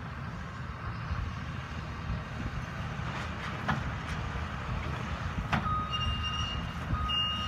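Cat hydraulic excavator's diesel engine running steadily, with a few sharp knocks from the demolition debris it is working. From a little past halfway, a backup alarm starts beeping about once a second.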